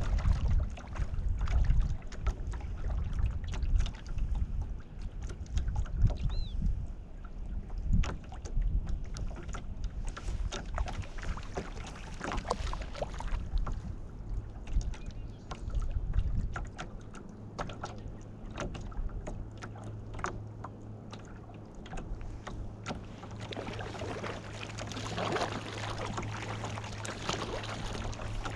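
Kayak paddling on a calm lake: scattered paddle splashes, drips and water lapping against the hull, with wind rumbling on the microphone for the first half. A steady low hum joins a little past halfway.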